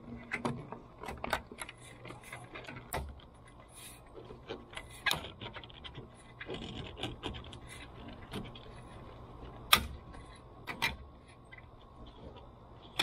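Plastic clicks, taps and knocks as a long black plastic roof strip is handled and fitted along a car's roof channel, with a louder pair of knocks late on.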